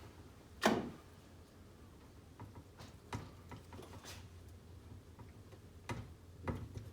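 Scattered clicks and light knocks of a hand tool working small screws and metal parts on an RC car chassis, the loudest about a second in and a few more spread through the rest.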